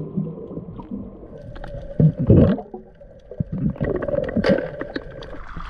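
Underwater noise of a diver descending over a reef, heard underwater: muffled gurgling and rumbling of water and bubbles, with scattered sharp clicks. A louder rush of water comes about two seconds in, and another near four and a half seconds.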